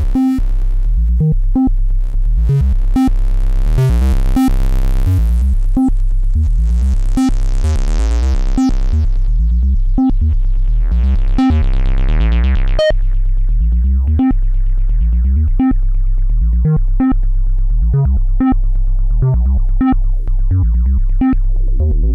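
Dreadbox Typhon monophonic analog synthesizer playing a fast sequenced pattern of short, plucky notes over a steady bass. The tone brightens and darkens twice in the first half, as the filter opens and closes, then stays darker.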